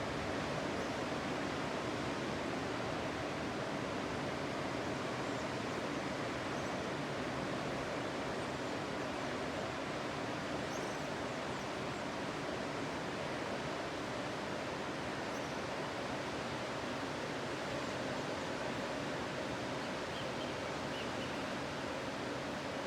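Sea surf on a beach: a steady, even wash of waves with no single breaker standing out.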